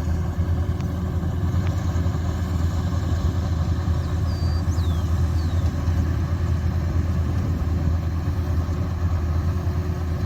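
Rice combine harvester's engine running steadily at constant speed, a loud even hum with no revving.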